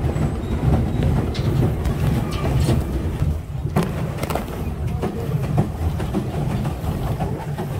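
Pedal boat being pedalled: a steady low rumble from the pedal and paddle drive, with scattered clunks and clicks from the mechanism and the plastic hull.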